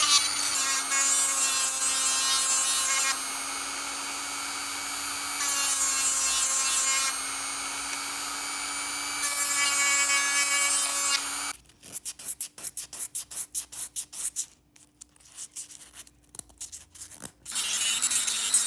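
A small power tool runs with a steady hum, growing louder and harsher in stretches as it is pressed against the work. About eleven seconds in it gives way to quick rhythmic scraping strokes, about five a second, for several seconds, before the steady tool noise returns near the end.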